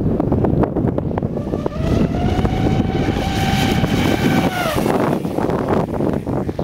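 Electric motor of a large RC speedboat whining at full speed: a high steady pitch that rises slightly about two seconds in and drops away just before five seconds. Heavy wind noise on the microphone runs under it.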